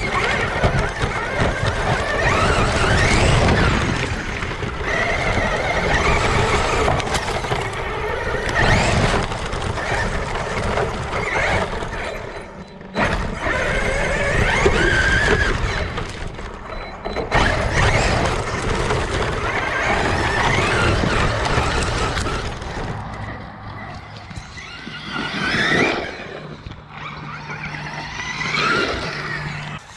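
Traxxas E-Revo electric RC truck driving over rough ground: its electric motor whines up and down in pitch with the throttle over a constant rattle and rumble from the drivetrain and tyres. It eases off and goes quieter for a few seconds near the end.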